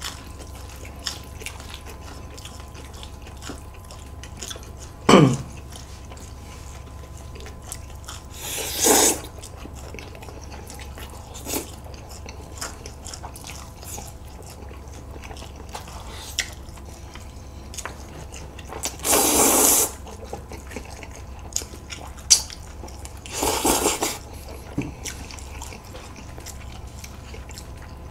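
Close-miked eating: jjajangmyeon noodles slurped in a few loud, breathy pulls of about a second each, between quiet chewing and small clicks, over a faint steady hum.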